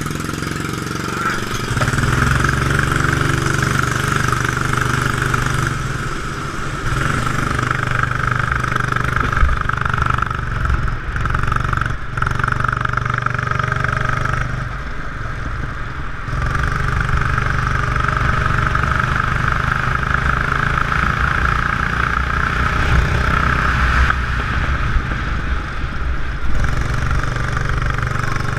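Go-kart engine running hard at a steady pitch, picking up strongly about two seconds in as the kart pulls away. It dips briefly a few times when the driver eases off.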